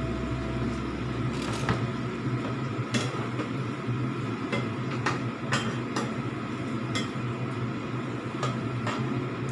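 A spatula knocking and scraping in a frying pan as pork slices are stir-fried: about eight separate clinks spread through, over a steady low hum.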